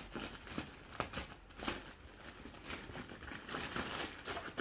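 Plastic courier mailer bag being handled and crinkled, with sharp crackles about once a second, then denser, louder crinkling from about three and a half seconds in as a cardboard box is slid out of it.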